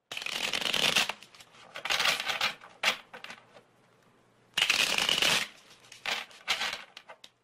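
Trading cards being shuffled by hand in about six short bursts, the longest about a second, with brief pauses between them.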